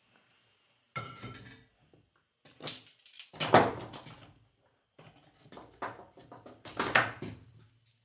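Metal tools clinking and clattering on a workbench as a soldering iron is set down and a small bench vise with a sliding T-handle is loosened to free a soldered metal jack plug. There are three bouts of clatter, the loudest clank about three and a half seconds in.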